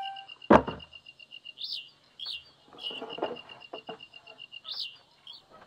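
A dry bamboo pole dropped onto a pile of bamboo poles gives one loud knock about half a second in, followed by lighter knocks and clatter as poles are shifted on the pile. A bird chirps in quick repeated notes throughout.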